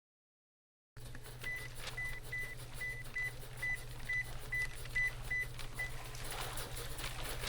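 A series of short, high electronic beeps, all at one pitch and irregularly spaced, some in quick pairs, over a steady low hum that starts about a second in. The beeps stop about six seconds in, and soft clicks and rustling noise follow.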